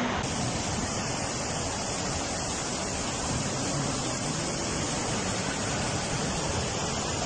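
Floodwater rushing down a street: a steady, even rush of moving water.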